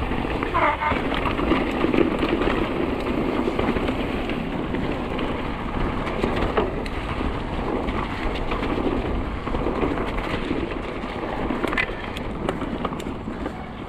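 Mountain bike ridden down a trail: a steady rushing and rattling noise from the tyres and the bike, with a short falling squeal about half a second in and a few sharp clicks near the end.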